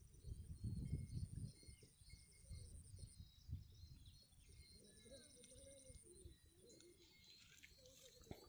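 Faint rural ambience: a dove cooing softly in the second half, over a high, steady trill, with wind rumble on the microphone in the first second or so.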